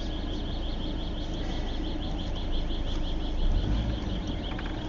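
Steady low rumble of a car's engine and tyres heard from inside the cabin as it rolls slowly. A quick run of short, high chirps repeats several times a second over it and fades near the end.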